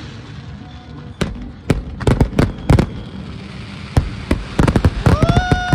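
Firecrackers and fireworks going off in an irregular string of sharp bangs and cracks, bunching into quick clusters about two seconds in and again near the end. Near the end a single pitched tone is held for about a second, sliding up at its start and falling away as it stops.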